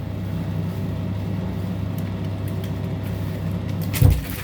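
Steady low hum, with a single loud thump about four seconds in.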